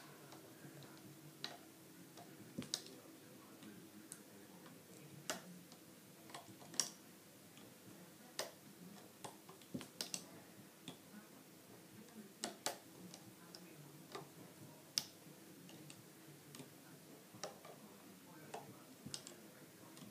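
Faint, irregular clicks and taps, one or two a second, of a plastic hook tool picking up rubber bands and pulling them over the pegs of a plastic bracelet loom.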